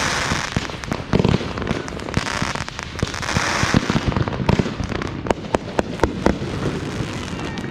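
Fireworks going off in quick succession: many sharp bangs and pops, with hissing, crackling bursts swelling near the start and again about halfway through.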